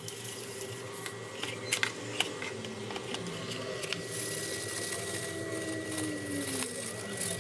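Table salt poured from a bag into a plastic bowl over beef steaks, a soft hiss about four to six seconds in, with a few light handling clicks earlier, over a steady low hum.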